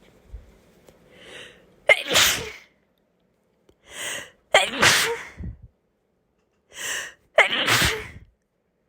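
A person sneezing three times, about two and a half seconds apart, each sneeze preceded by a quick audible in-breath.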